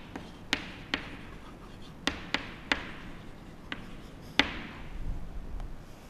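Chalk writing on a chalkboard: a run of sharp taps with faint scraping strokes between them, the loudest tap about four and a half seconds in.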